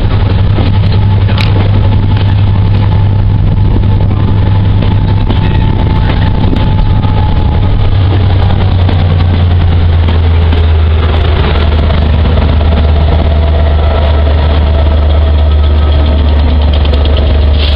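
Class 67 diesel locomotive's two-stroke V12 engine working hard as the train moves past at close range: a loud, deep, steady drone that settles slightly lower in pitch about halfway through.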